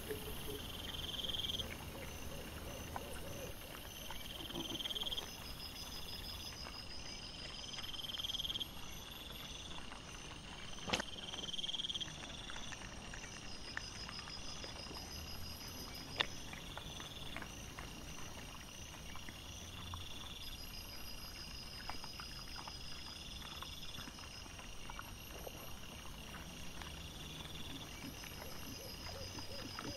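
Night insects calling in a steady repeating pattern: short high buzzy trills about every two seconds over faster pulsing chirps. Two sharp clicks stand out near the middle.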